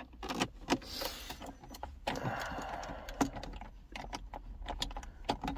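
Irregular light clicks and scraping of a screwdriver turning a T20 Torx screw out of the plastic centre-console trim under a Volkswagen Golf's gear stick.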